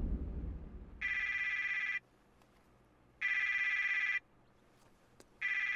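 Mobile phone ringtone: an electronic warbling ring in bursts of about a second, repeating about every two seconds, three times. A low rumble fades out over the first second.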